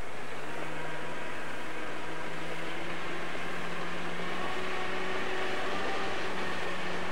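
Crawler bulldozer's diesel engine running steadily under a constant hiss; its note rises slightly about four seconds in as the machine works.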